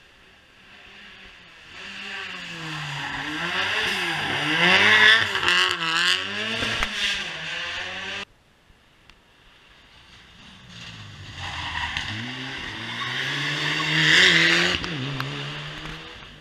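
Two modern rally cars, one after the other, taking a hairpin: each engine note rises and falls repeatedly as the car brakes, changes down and accelerates out. The first car's sound builds, then cuts off suddenly about eight seconds in. The second builds from about ten seconds in and is loudest near the end.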